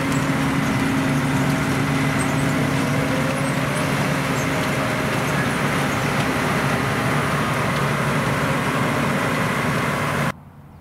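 Case IH tractor pulling an AVR Spirit 9200 onion harvester at work, with a second tractor alongside: the diesel engines run with a steady low hum under the harvester's machinery noise. The sound drops away suddenly near the end.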